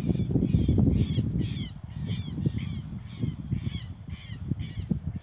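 A bird calling over and over in short, harsh notes, about two a second. Underneath is a low rumble, loudest in the first second or two and softer after it.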